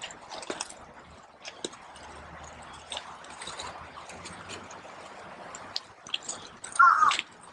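Footsteps crunching slowly on a loose river-stone gravel path, a scatter of small clicks and crunches as the stones shift underfoot. Near the end, a short loud animal call cuts in.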